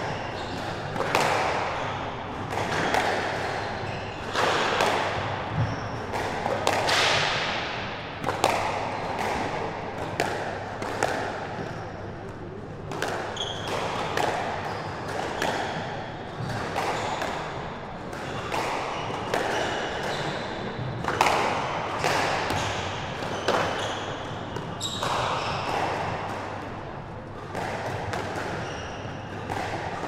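Squash ball being hit back and forth: sharp racket strikes and cracks off the court walls, coming irregularly about once a second.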